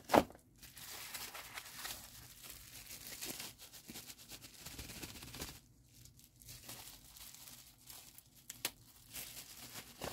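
Crinkly plastic packaging rustling as a wristwatch is unwrapped by hand. A sharp knock comes right at the start, and a single click comes about three-quarters of the way through.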